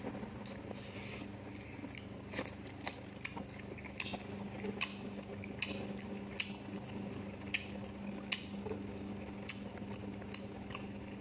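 Close-miked eating: chewing and biting, with irregular sharp crunches and wet mouth clicks every second or so over a steady low hum.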